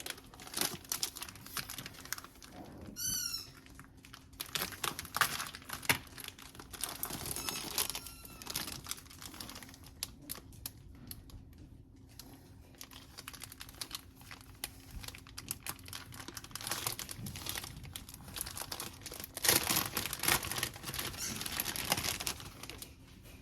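Crinkling and rustling of the wrapping on sliced provolone cheese as the slices are peeled apart and laid onto sliders, with scattered small clicks and taps. A brief high squeak about three seconds in, and a louder spell of crinkling near the end.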